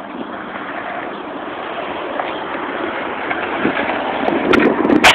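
Skateboard wheels rolling over rough asphalt, the rumble growing louder as the board comes closer, then a few sharp clacks of the wooden board against the pavement near the end, the loudest one right at the very end.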